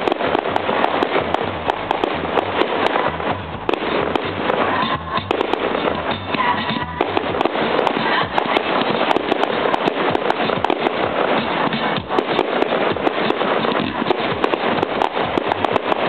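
Fireworks going off in quick succession: a dense, unbroken crackle of many small bangs, with music playing underneath.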